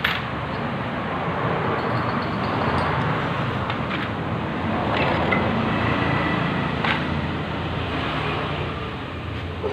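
Motorcycle engine running steadily, with a few short knocks or clicks.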